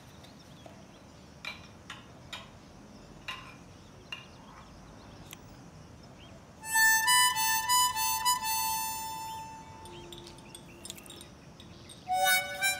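A harmonica plays a short phrase of held and wavering notes, starting about seven seconds in and fading by ten seconds, then starting again near the end. Before it there is only faint room sound with a few soft clicks.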